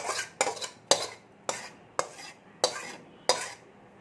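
A metal spatula scraping and knocking against a metal pan about seven times, roughly twice a second, clearing the last of a cooked spinach and potato dish into a steel bowl; the strokes stop about three and a half seconds in.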